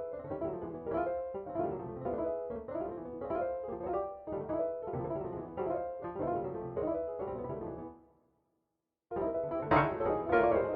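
MIDI piano playing a rhythmic pattern of chords and melody notes; it breaks off about eight seconds in, stays silent for about a second, then comes back louder.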